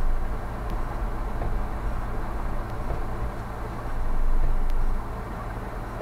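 Steady low rumble of a car driving, heard inside the cabin through a dashcam microphone, swelling louder for about a second near the end.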